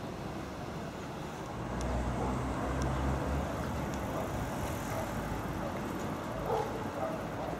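Steady outdoor background noise, with a low rumble that grows louder from about two to three seconds in.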